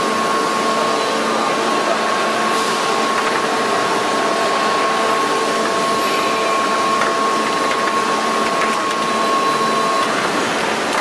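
Injection moulding machine running with a crate mould clamped in it: a loud, steady mechanical noise with a steady whine that stops about ten seconds in.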